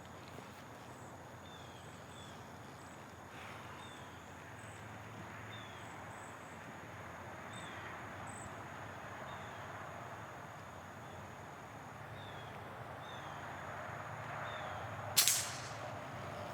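Steady insect chirping over an outdoor background, then one sharp shot from a Daystate MK4 Panther .177 air rifle about fifteen seconds in.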